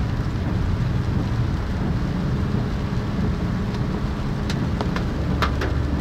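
Steady low rumble of a car's tyres on a wet road and its engine, heard from inside the cabin. Near the end come a few short squeaks as the windscreen wiper sweeps the glass.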